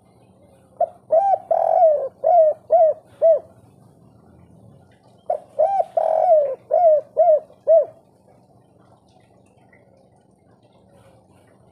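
Spotted dove cooing: two phrases about four and a half seconds apart, each made of a few short notes, one long drawn note, and then three short 'kuk' notes at the end, the 'kuk 3' song type.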